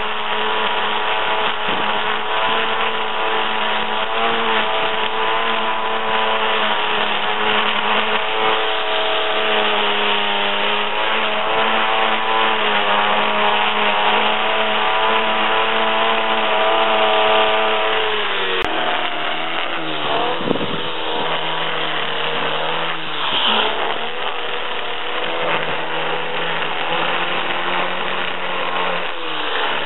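Petrol string trimmer (whipper snipper) running at high revs, its line cutting grass along a lawn edge, with a steady engine whine. About 18 seconds in the pitch drops, then rises and falls as the throttle is eased and opened again.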